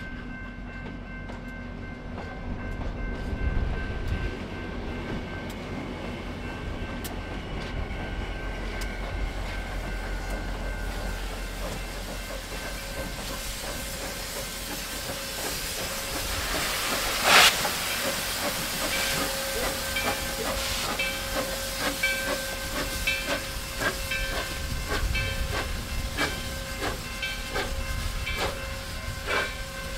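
Steam locomotive #4960, a 2-8-2 Mikado, with its train rolling by at first. Just past halfway there is one sudden loud blast of steam, followed by a run of short beats about one or two a second with steam hissing, as steam escapes around the cylinders.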